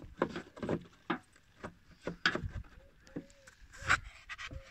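Handling noise from a plastic engine air-filter housing as a new pleated paper air filter is seated in it: irregular clicks, knocks and rubbing, with a few short squeaks in the second half.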